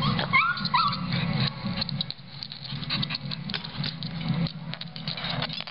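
A shih tzu pawing and scrabbling at a hardwood floor, its claws making many quick irregular taps and scrapes as it tries to reach a ball stuck under furniture. A few short rising whimpers come in the first second.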